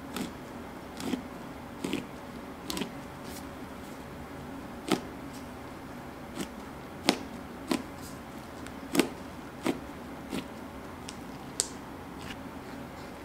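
Fluffy slime being pressed, squeezed and stretched by gloved fingers, giving irregular sharp pops and clicks roughly once a second as trapped air bubbles burst, over a steady background hum.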